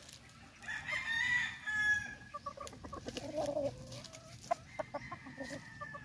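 A gamecock crows once, starting about a second in, followed by a run of shorter clucking calls.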